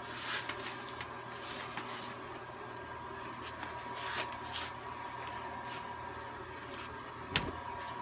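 Steady electrical hum with a thin high whine, broken by a few soft rustles and one sharp click about seven seconds in.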